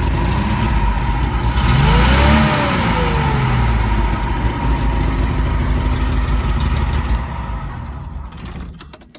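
Datsun 260Z's 2.6-litre straight-six engine running, freshly started on a new ignition switch. It is revved once, rising and falling about two seconds in, then fades away as the engine is shut off near the end, followed by a few light clicks.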